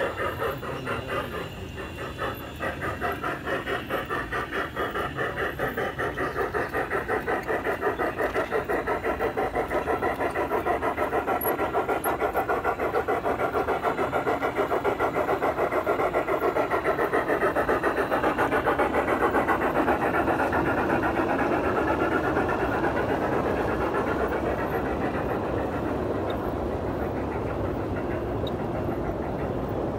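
Large-scale model steam locomotive chuffing in a fast, even rhythm as it runs along the track, growing louder past the middle and easing off a little near the end.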